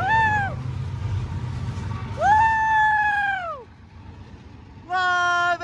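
Air horn of a BNSF GE diesel freight locomotive sounding in blasts: one ending about half a second in, a long blast about two seconds in, and another, lower-pitched one near the end, over the low rumble of the locomotives' diesel engines passing.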